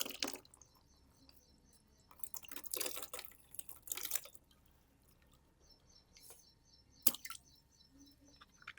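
Balloon being handled in short crackly rubbing bursts, with one sharp click about seven seconds in.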